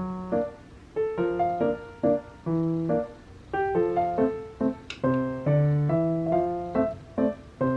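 Background music: a light piano tune with chords changing every half second or so.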